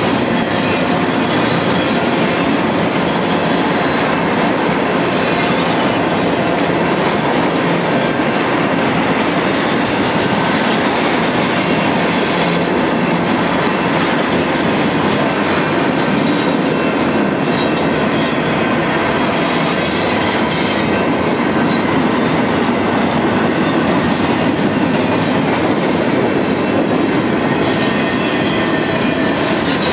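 Double-stack intermodal freight train's well cars rolling past: steel wheels on the rails making a steady, loud rolling noise that holds at the same level throughout.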